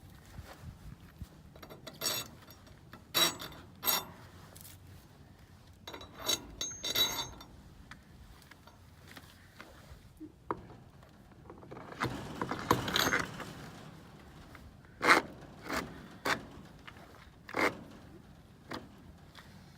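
Metal wheel hardware and tools being handled while wheels are mounted: scattered clinks and knocks, with a longer stretch of scraping about two-thirds of the way through.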